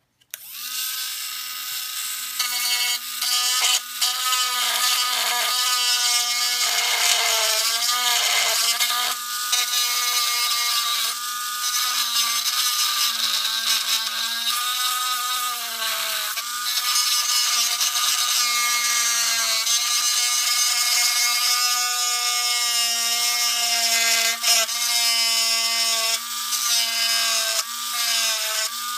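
Small handheld electric rotary tool switched on and grinding the cut edges of a hard plastic model car body with a grinding bit: a steady motor whine under a gritty scraping, the pitch sagging briefly several times as the bit is pressed into the plastic.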